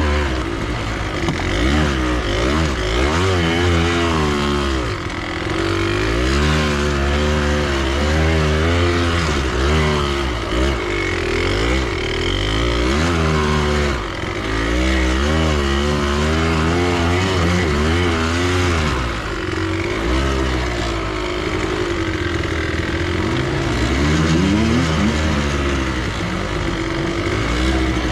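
Japanese enduro motorcycle's engine heard from the rider's seat, revving up and down again and again as the throttle is worked through turns. It backs off briefly about five seconds in and again about fourteen seconds in.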